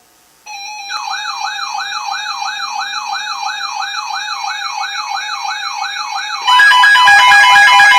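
Weather alert radios going off for a flood warning. A steady alert tone starts about half a second in, and a warbling siren-like alarm joins it, sweeping up and down about two and a half times a second. A little over six seconds in, a louder layer of several pulsing beep tones comes in over it.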